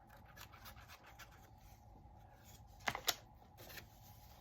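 Faint scratching and rubbing of paper being handled and pressed, with two sharp clicks close together about three seconds in.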